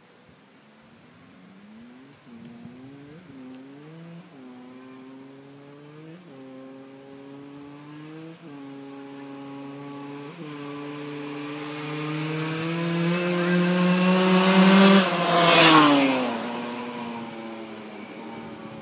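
Dirt bike accelerating hard toward the listener and past, its engine note climbing and dropping back with each of about six upshifts and growing louder as it comes. It is loudest as it passes near the end, when the pitch falls away, then fades into the distance.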